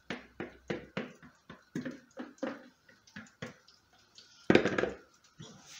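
Scraping and knocking of an orange plastic bowl as the spinach-and-egg tortilla mixture is emptied out of it into a hot frying pan, short strokes about three a second. About four and a half seconds in comes a louder clatter lasting about half a second.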